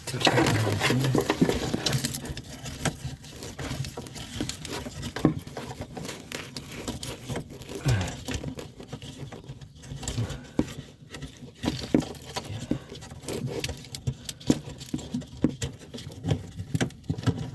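Hands working a plastic wiring-harness connector onto an EVAP canister vent valve solenoid: irregular clicks, taps and rustling of plastic and wiring.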